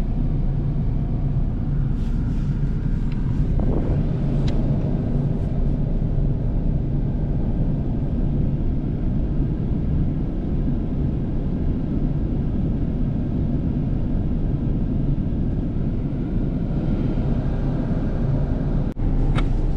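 A large diesel engine idling steadily, with a few faint clicks over it.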